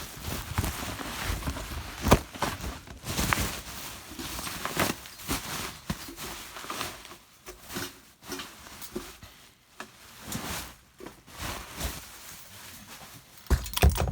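Packaging rustling and knocking in irregular bursts as a ceiling fan motor is unpacked from its box, busier in the first few seconds.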